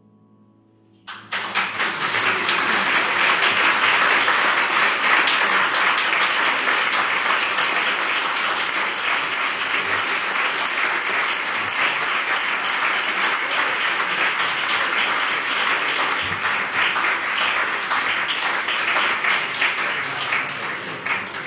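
A small seated audience applauding. The clapping starts suddenly about a second in, after the last piano notes die away, keeps up steadily and eases off near the end.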